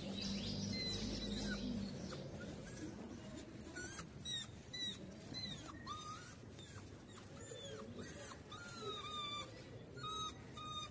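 Puppy whining: a run of short, high-pitched whines, about two a second, many of them falling in pitch.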